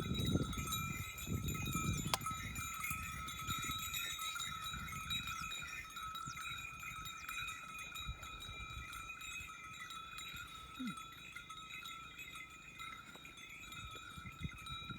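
Small bells on a pair of working bulls ringing steadily as they pull a land leveller, with low rumbling in the first two seconds and a single sharp click about two seconds in.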